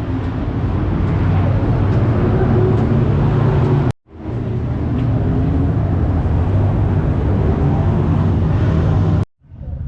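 410 sprint car V8 engines running loud and steady. The sound cuts out abruptly about four seconds in and again near the end, each time coming straight back.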